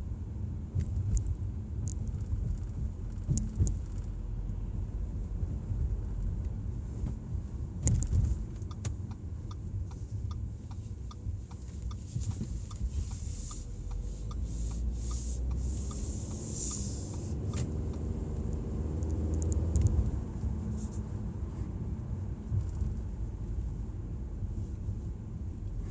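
Audi A4 under way: a steady low rumble, with the engine note rising as the car accelerates from about 14 to 20 seconds in. A regular ticking runs about twice a second through the middle. This is the noise the owner hears when accelerating, its cause not identified.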